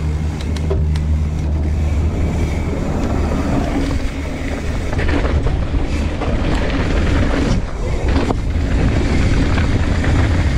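Wind buffeting the camera microphone over the steady rumble of a mountain bike descending a dirt trail, with scattered knocks and rattles from the bike over rough ground.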